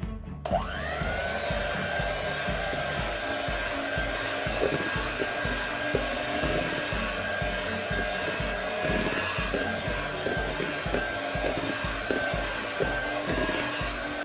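Electric hand mixer switched on about half a second in, its motor whine rising quickly to a steady pitch as the beaters work flour into cake batter in a stainless steel bowl, then cutting off near the end. Background music plays underneath.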